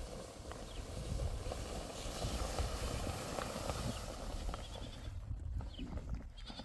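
Plastic tarpaulin rustling and crinkling as it is pulled and spread over the ground, over a steady low wind rumble on the microphone. The rustling thins out about five seconds in. Sheep bleat faintly in the background.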